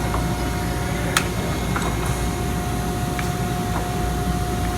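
Steady mechanical hum of a powered-up 1994 Mazak Super Turbo X48 CO2 laser cutter running, with a constant mid-pitched tone over it and a few light clicks, the sharpest about a second in.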